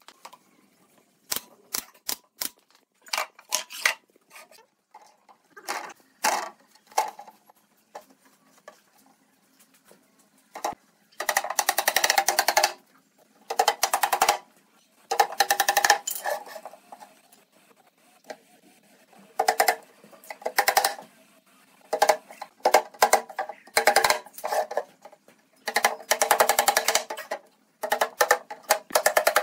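Hammer rapidly tapping small nails through a thin white-faced panel into the edges of a wooden drawer box, in bursts of quick light blows a second or two long. A few single sharp knocks come in the first few seconds.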